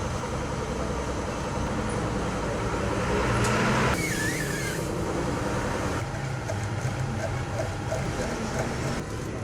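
A steady low mechanical hum like a running engine, swelling with a hiss about three to four seconds in that cuts off sharply.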